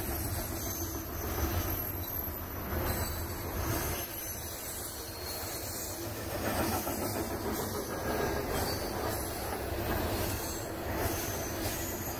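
Freight cars rolling past at speed: a steady rumble of steel wheels on rail, with uneven clicks over the rail joints and a thin, high wheel squeal.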